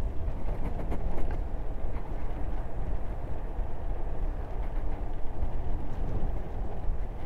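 Steady rushing noise of wind buffeting the microphone and scooter tyres rolling on asphalt during a fast downhill coast, with the energy low and rough.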